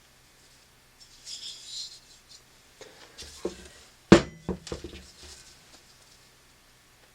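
Hard parts being handled during disassembly: a brief rustle, then a few clinks and knocks, the loudest one about four seconds in.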